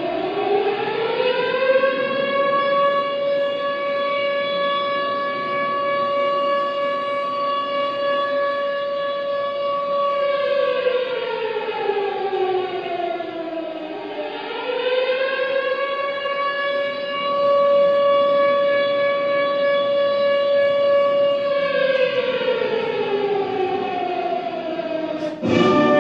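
Commemoration siren wailing, the signal for the moment of silence: it rises, holds one steady note for several seconds and slowly falls, twice over. Right at the end, orchestral music begins.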